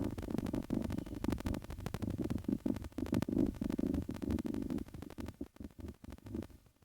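Kitten purring close to the microphone: a low rumble that swells and dips with its breathing, fading out near the end.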